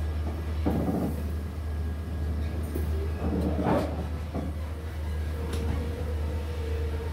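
Passenger train carriages running along the track, heard from on board. There is a steady low rumble, clattering knocks about one second and again about four seconds in, and a faint thin whine that comes in near the end.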